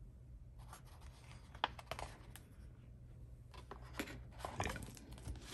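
Pages of a hardcover picture book being turned and handled: scattered soft paper rustles and small clicks.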